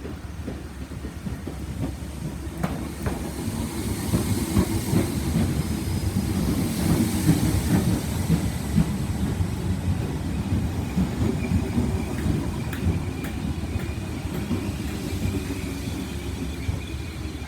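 Class 313 electric multiple unit running through the station, its wheels clicking over rail joints above a low rumble that swells through the middle. A thin high steady tone comes in about ten seconds in.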